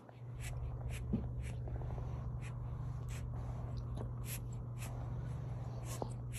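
Newborn kitten crawling and snuffling on a soft knitted blanket: scattered small ticks and scratches over a steady low hum.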